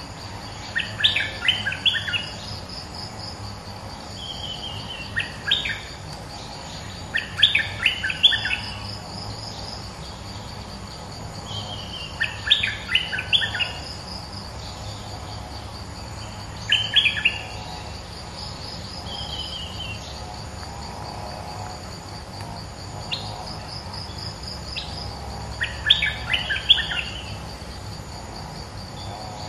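Streak-eared bulbul calling in bursts of quick, sharp notes, about six bursts, each roughly a second long and several seconds apart, some led by a short falling note. A steady pulsing insect trill runs underneath.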